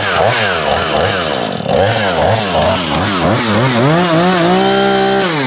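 A two-stroke chainsaw, already warm, being revved in quick throttle blips about twice a second, then held at high revs near the end before briefly dropping back.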